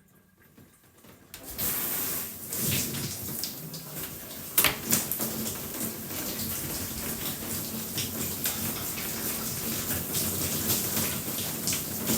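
A shower turned on about a second and a half in, then water spraying and splattering steadily, with a few sharper splashes.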